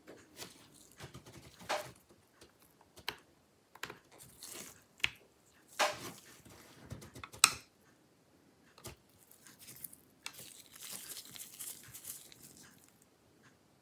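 Gloved hands handling an M.2 SSD inside an opened laptop: rustles and small clicks as the drive is pushed into its slot and pressed flat, with one sharp click about seven seconds in. Near the end there is scratchy rubbing as a small screwdriver works the drive's retaining screw.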